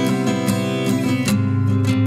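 Background music of strummed acoustic guitar, with chords struck in a quick steady rhythm.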